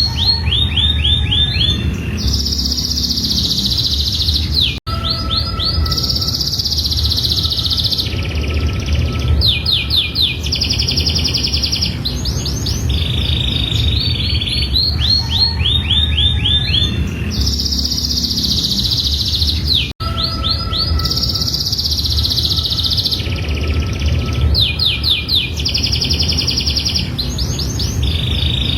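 Domestic canary singing a long, unbroken song of rapid trills and rolling repeated notes, high-pitched, over a steady low hum. The song cuts out for an instant about 5 and 20 seconds in, and the same stretch of song starts over each time.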